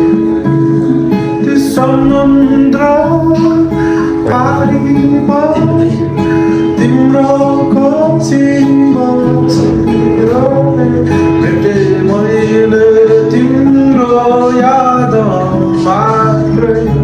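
Acoustic guitar being played, with a man singing along to it. The voice comes in about two seconds in.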